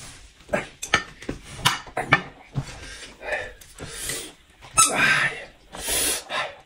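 Close-miked mukbang eating sounds: wet chewing and lip smacks, with a few louder noisy slurps of noodles around the middle.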